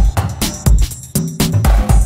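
Electronic background music with a heavy, steady beat.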